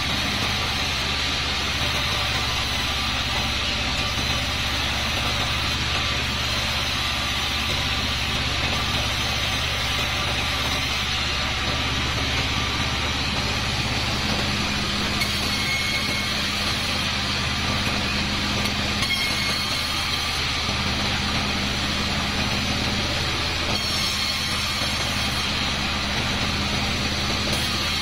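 A 36-inch sawmill bandsaw running steadily, its motor humming and its blade sawing slabs of kapok (randu) wood into boards.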